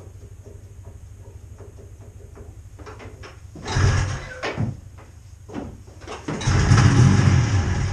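Two hard pulls on a snowmobile's recoil starter rope, cranking the cold engine without it catching; the second pull is longer.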